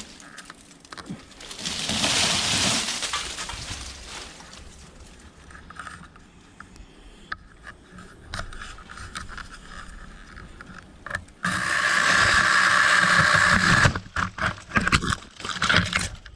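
Small battery-powered mini chainsaw running in short bursts as it cuts into hedge branches, with rustling leaves and snapping twigs. The longest run is a steady high whine of about two seconds, about two-thirds of the way through.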